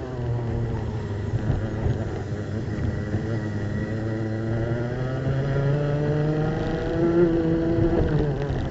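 Racing kart's two-stroke engine heard onboard: its note falls as the kart brakes for a tight corner, then rises steadily as it accelerates out, with a brief dip near the end. Other karts' engines run close by.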